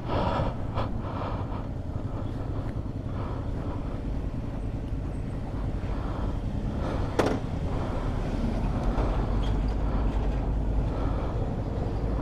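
Yamaha Tracer 9 GT's 890 cc three-cylinder engine idling steadily, with a single sharp click about seven seconds in.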